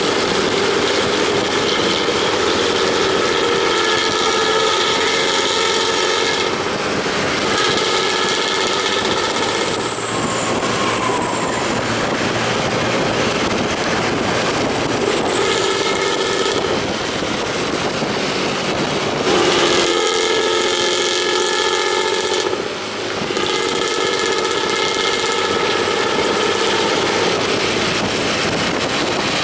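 A Pantura intercity bus with a "ngorok" (snoring) exhaust running loudly amid road traffic. A steady, horn-like chord of several notes sounds in spells of a few seconds each, breaking off abruptly between them.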